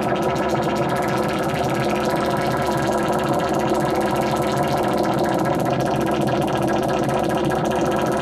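Make Noise Eurorack modular synthesizer playing a steady, dense drone with many pitched layers stacked on top of each other.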